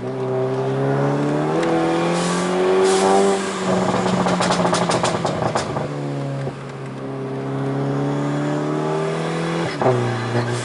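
Tuned 1.4 TSI turbocharged four-cylinder of a Seat Ibiza Cupra 6J (stage 2+) pulling under load with the revs climbing. About four seconds in the throttle is lifted: as the revs fall, the exhaust gives a rapid string of pops and crackles. The engine pulls again, and one sharp bang comes near the end as the revs drop.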